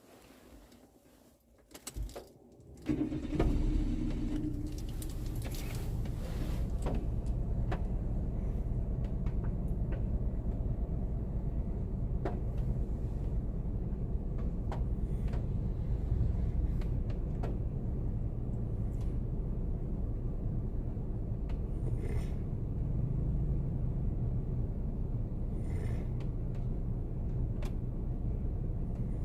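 A few clicks, then about three seconds in a car engine starts and settles into a steady low idle, the heater running, with occasional light ticks over it.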